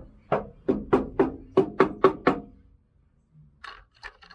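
Bare steel side panel of a Unimog U1300L cab being knocked on about nine times in quick runs, each knock ringing briefly. The untreated panel still rings because it has no sound deadening yet. Near the end come a few faint scrapes.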